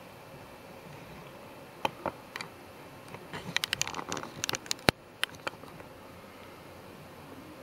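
Sharp clicks and taps: a few single ones about two seconds in, then a quick flurry in the middle with one loud, sharp click near five seconds, over a low steady hiss.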